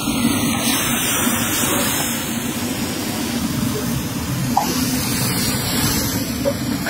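Vegetables sizzling in a hot wok over a high gas flame that flares up around the pan: a steady hiss.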